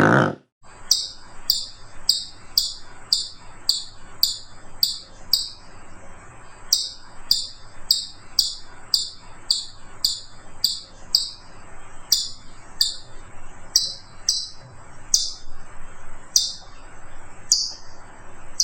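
A bird repeating a short, high, downward-sliding call about twice a second, in a steady series with a couple of brief pauses. A brief loud sound from the previous clip cuts off at the very start.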